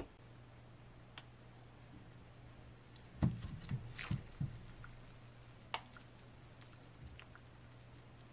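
A dried instant noodle block is set into a clay pot of water, with a quick cluster of soft knocks and splashy thuds about three seconds in. A few light clicks follow, over a steady low hum.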